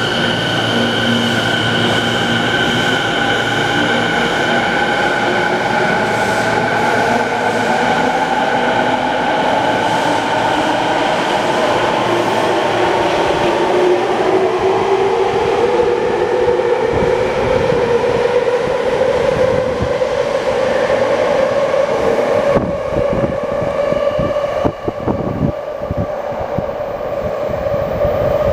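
A Tokyo Waterfront Area Rapid Transit 70-000 series electric train pulls out of an underground station and gathers speed. Its motors whine, climbing slowly in pitch and then levelling off. From about halfway through, the wheels clack rapidly over the rail joints as the cars pass.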